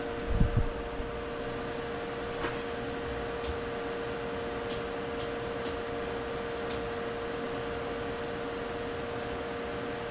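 Steady machine hum with a constant pitched tone, like a running fan or motor. There is a short low thump about half a second in, and a few faint ticks follow over the next several seconds.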